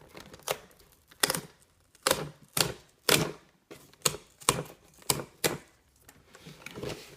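Stiff plastic phone packaging being peeled and handled, crackling in about nine sharp separate snaps over the first five seconds.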